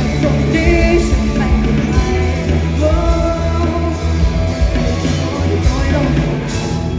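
Live rock band playing a song with a singer over heavy bass and drums; the music starts to fade near the end.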